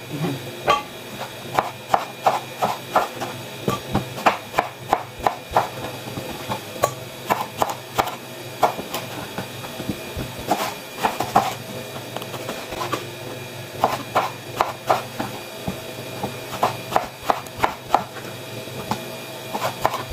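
Kitchen knife slicing eggplant on a wooden cutting board: repeated knocks of the blade striking the board at an uneven pace, about one or two a second.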